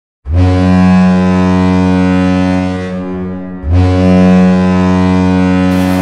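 Hockey goal horn sounding two long, deep blasts. The first lasts about three seconds and the second follows almost at once. Music comes in just before the end.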